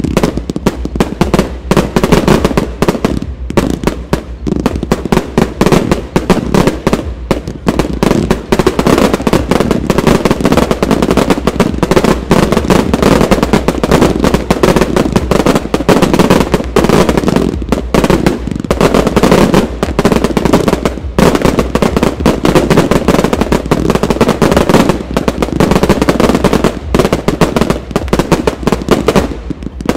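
Fireworks finale: a dense, loud barrage of aerial firework launches and bursts, many bangs a second overlapping with hardly a gap.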